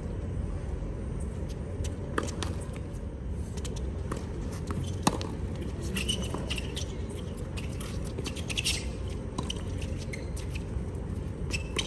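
Tennis ball being hit back and forth by rackets during a doubles rally on a hard court: a series of sharp pops, the loudest about five seconds in, with short shoe squeaks in between, over a steady low background rumble.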